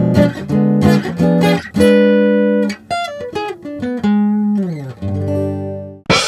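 Short guitar intro jingle: a few plucked chords, a held chord, then a quick descending run of single notes and held notes, ending on a sudden cymbal crash near the end that rings on.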